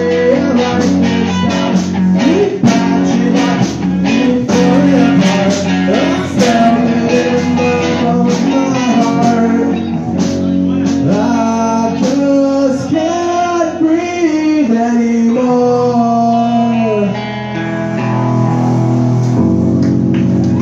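Live rock band playing a guitar-led passage, with guitars over a steady beat.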